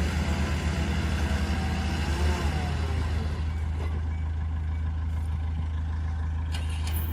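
Heavy diesel engine running steadily, a low drone.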